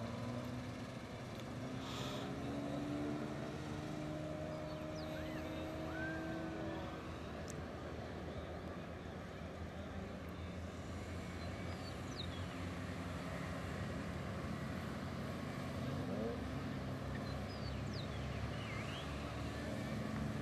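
A line of older BMW cars (E30 3 Series and others) driving past one after another, their engines running in a steady low rumble. A few short high chirps come and go over it.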